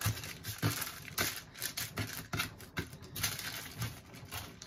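Parchment paper rustling and crinkling on a metal sheet pan as loaves of bread dough are shifted and pressed into place, with a quick run of soft taps and knocks.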